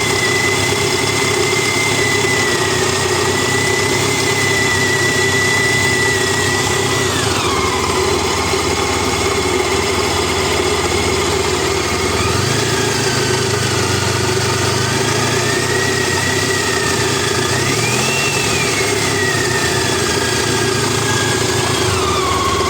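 Honda ST1300's V4 engine running with a rattle. Its pitch falls about a third of the way through, climbs again a little past halfway and drops once more near the end.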